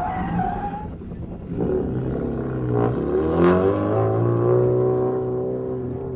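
Subaru Impreza WRX STI rally car with a turbocharged boxer engine: tyres squeal briefly at the start, then the engine revs hard, dipping and climbing again about three seconds in, and runs at high revs as the car drives across.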